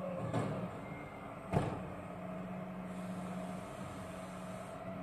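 Bin lorry's diesel engine running steadily, with one sharp knock about a second and a half in and a lighter click shortly before it.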